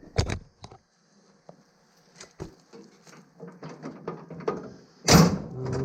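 Mower deck hardware being worked by hand: scattered metal clicks and knocks as the deck hook is taken off its bar, with one loud clank about five seconds in.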